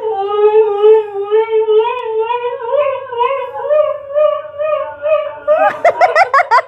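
A cocker spaniel gives one long, wavering howl that slowly rises in pitch. It breaks into short, quick cries near the end.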